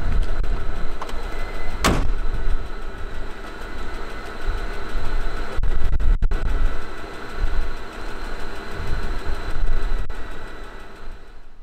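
Car engine running, with one sharp click about two seconds in.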